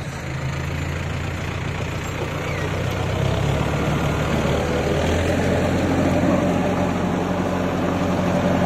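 Tractor diesel engine running steadily, getting gradually louder, with a shift in its note about five seconds in.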